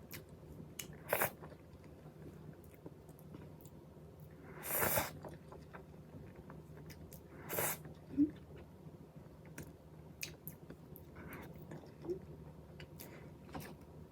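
Close-miked mouth sounds of someone eating strawberries with whipped cream: scattered wet clicks and a few louder bites and chews, with small swallowing sounds between.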